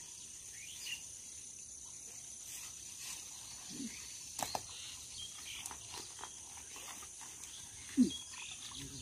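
Insects chirring steadily at a high pitch, with a few brief rustles and knocks from walking through grass, the loudest near the end.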